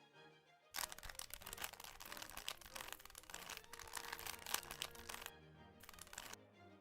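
Background music with rapid plastic clicking, typical of a Rubik's Cube being turned quickly. The clicking starts about a second in, breaks off briefly near the end, then comes back.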